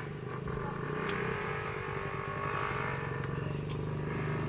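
An engine running steadily at a low, even speed, with a rapid low pulsing and a few faint clicks over it.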